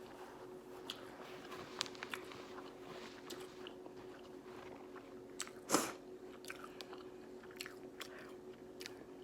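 A person chewing and eating a mouthful of seafood-boil food, with scattered small wet mouth clicks and one louder smack about six seconds in. A faint steady hum runs underneath.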